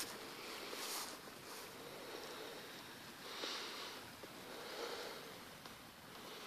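Faint, steady rush of a shallow creek flowing over rocks, with three soft sniffs close to the microphone.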